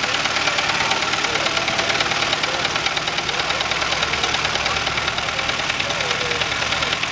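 Ford Model T four-cylinder engine running at a steady idle on a bare chassis, a rapid even firing rhythm.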